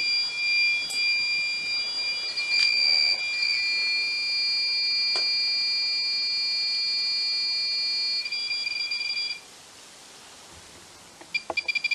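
RemPod paranormal proximity detector sounding its alarm: a steady high-pitched electronic tone that wavers about eight seconds in and cuts off about a second later, then a short burst of quick beeps near the end. The alarm signals a disturbance of the electromagnetic field around its antenna.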